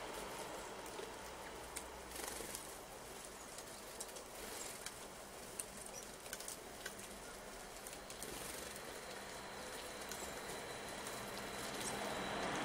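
Faint outdoor ambience with light patter and scattered ticks, and a few short, high bird chirps. Near the end the noise of an approaching vehicle rises.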